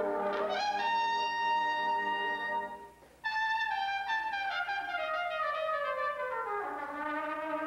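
Solo trumpet with a brass band: one long high note held, then a brief break about three seconds in. It comes back on another high note and plays a run of notes descending in pitch, as the band's low notes come back in near the end.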